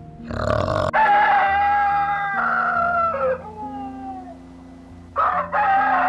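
Rooster crowing twice: a long call from about a second in that drops in pitch at its end, and a second crow starting near the end, after a brief rough noise at the start. Background music with steady notes plays underneath.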